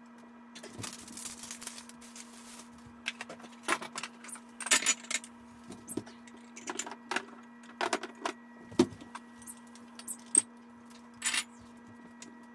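Glass bottles and jars clinking and knocking as they are set down one by one on a wooden cabinet top: a dozen or so sharp, irregular clinks. A steady low hum runs underneath.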